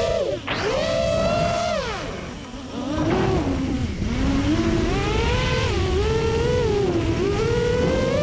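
FPV quadcopter's brushless motors whining, the pitch rising and falling with the throttle. The whine drops and quietens about two seconds in, then climbs back.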